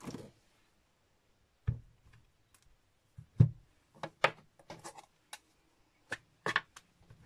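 Clear acrylic stamping block being picked up and set down on the craft mat: a scatter of short clicks and knocks, the loudest about three and a half seconds in.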